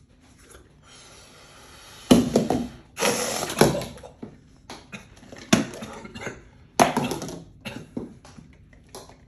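Blown-up rubber balloons let go: air rushing out noisily as they deflate, loudest for a second or two early on, followed by a few sharp knocks.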